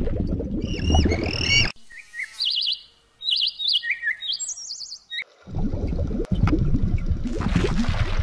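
Small birds chirping in quick, high, zigzag trills for about four seconds. Before and after them is a loud, churning water rumble like bubbling, which stops under the chirps and returns about five and a half seconds in.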